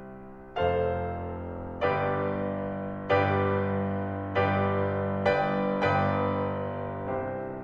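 Background music: slow piano chords, each struck and left to ring and fade, about one every second or so.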